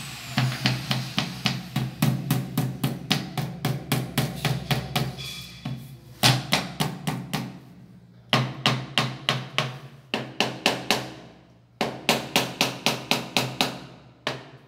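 Rubber mallet tapping a ceramic tile to bed it into its adhesive, about four quick taps a second in runs broken by short pauses.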